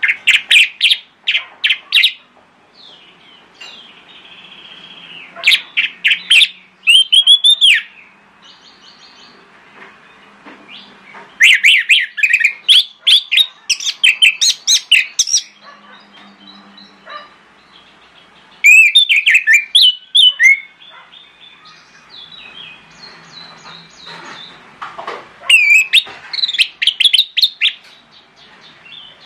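Orange-headed thrush singing: loud phrases of rapid, high, clear notes and slurred whistles. The phrases come in about five bursts of a couple of seconds each, separated by pauses of a few seconds that hold only softer calls.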